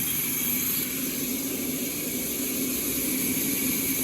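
Sawmill saw machinery running with a steady mechanical noise and a constant hum.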